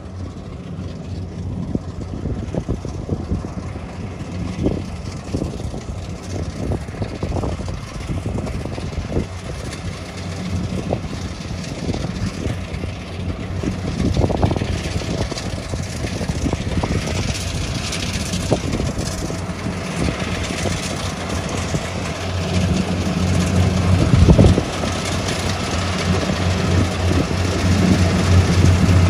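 A small tracked rice combine harvester's engine running steadily as it cuts and threshes rice, with scattered knocks from the machinery. The hum grows louder about three-quarters of the way in, and one loud knock stands out shortly after.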